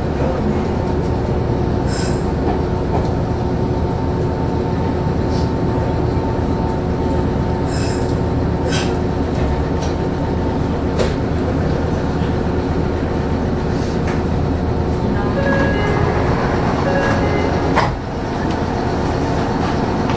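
Electric train heard from the driver's cab: a steady hum of the train's equipment over a low rumble, with occasional sharp clicks. Near the end comes a louder clunk, and the sound drops for a moment after it.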